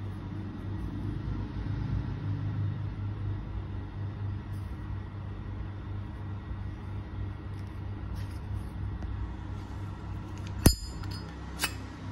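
Steady low hum in the background, then a sharp metallic click about ten and a half seconds in and a smaller click about a second later, as a Zippo lighter is handled.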